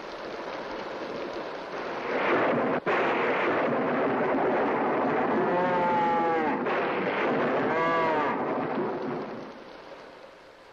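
Storm noise of rain and wind swelling to a steady rush, with a cow bawling twice in the middle, long drawn-out calls that arch in pitch: a cow in distress. The storm noise dies down near the end.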